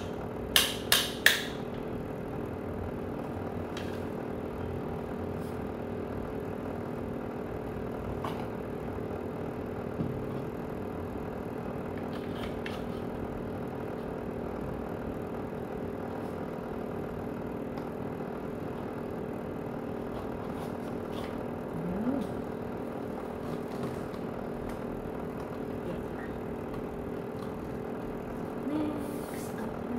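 Plastic parts of a Tefal garment steamer being fitted together: three sharp clicks within the first second and a half, then a few faint knocks as the hanger and pole are handled. A steady low hum runs underneath.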